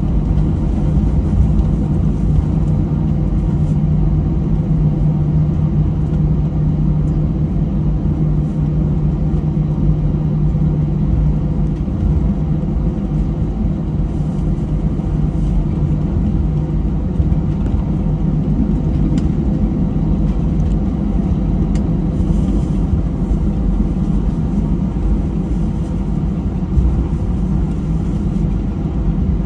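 Airliner cabin noise while taxiing after landing: a steady low rumble from the jet engines at idle and the wheels on the taxiway. A low hum is strong at first and weakens about halfway through.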